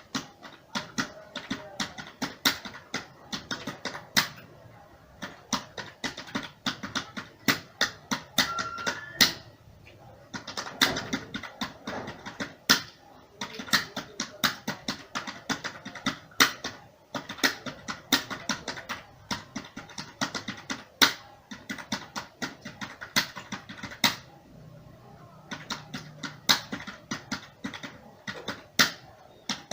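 Computer keyboard being typed on at around 45 words per minute: irregular key clicks several a second, with short pauses about ten seconds in and again near the end.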